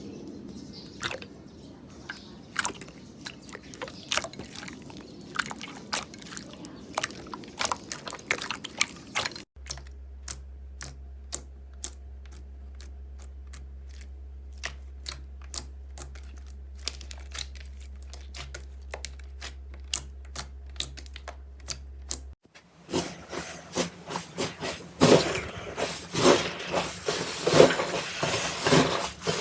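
Slime being squeezed and poked by hand, making a run of sharp wet clicks and pops. A steady low hum runs under the middle part, and the clicking turns denser and louder near the end.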